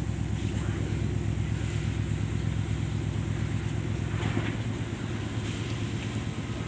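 Steady low rumble of a car ferry's diesel engine running.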